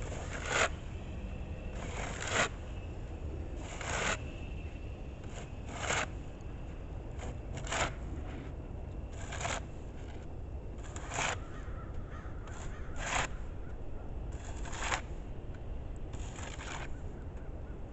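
Snow shovel scraping along a snowy concrete sidewalk in short, regular strokes, about one every two seconds, over a steady low rumble.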